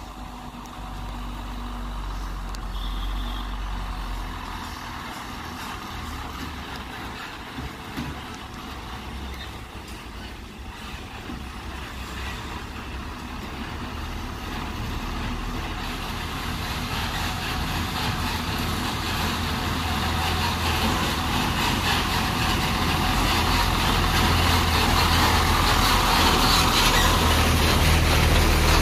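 Tata 3118C heavy multi-axle truck's diesel engine running as the truck drives up and passes close by, growing steadily louder.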